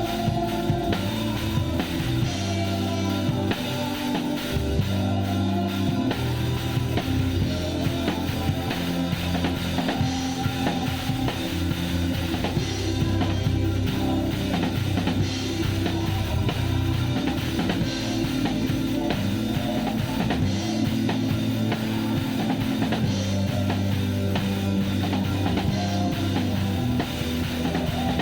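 Live drum kit playing a steady rock groove with kick and cymbals, heard close up from the kit, with the band's bass and sustained chords underneath. The recording is unmixed.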